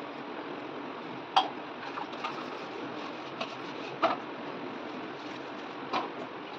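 Steel utensils clinking against each other and the sink as they are washed by hand, a few sharp clinks over the steady hiss of running tap water.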